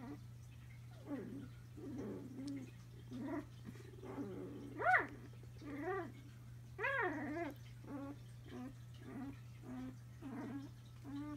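Five-day-old Newfoundland puppies squeaking and whimpering in their sleep: a string of short high squeals and low grunts, the loudest a rising-and-falling squeal about five seconds in and another about seven seconds in.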